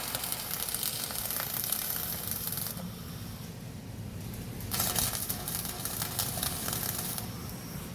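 CO2-shielded MIG welding arc crackling and sizzling, in two runs with a pause of about two seconds between them.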